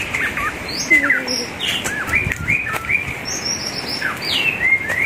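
Small birds chirping: a busy string of short whistled notes, several of them sliding down in pitch, overlapping as if from more than one bird.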